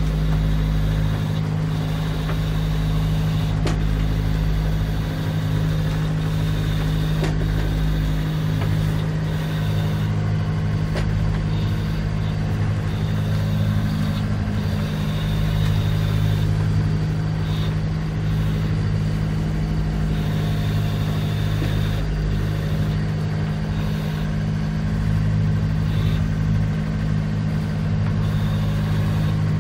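Motor-sailer's inboard engine running at a steady speed, a constant low drone, heard from inside the wheelhouse.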